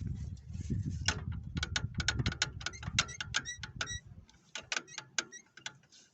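A run of irregular sharp clicks and ticks, several a second, some with a short ringing tone, over a low rumble that dies away about four seconds in.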